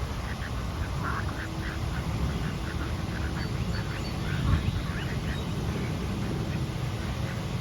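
Mallard ducks quacking, a quick run of short calls in the first few seconds, then fewer and fainter. A steady low rumble sits underneath.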